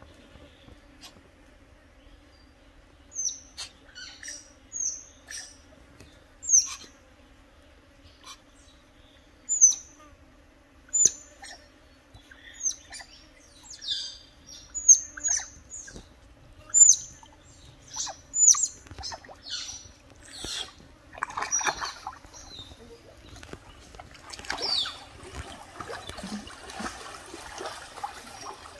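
Otters giving short, high-pitched chirps, one every second or so, each call a quick falling squeak. Near the end the chirps give way to a wash of splashing water.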